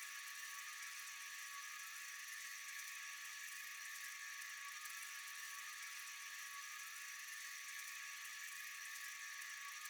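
Steady high-pitched chorus of night insects, an even shrill buzzing with no breaks.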